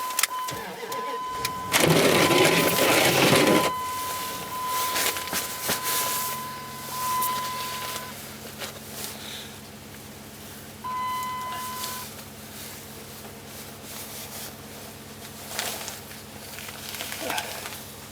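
Pickup truck's warning chime sounding steadily as the key is in, the engine cranking and catching about two seconds in, then running at a steady idle. The chime sounds again briefly partway through.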